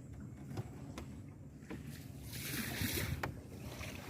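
Boat moving on water: a steady low hum, a rush of water about two and a half seconds in, and a few sharp knocks.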